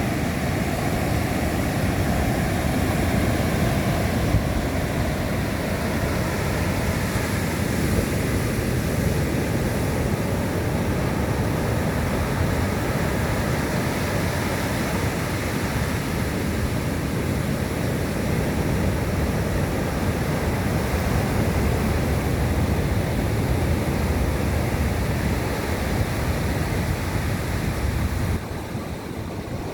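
Big Atlantic surf breaking continuously in heavy, slowly swelling waves, with strong wind blowing over the microphone. The sound drops off a little near the end.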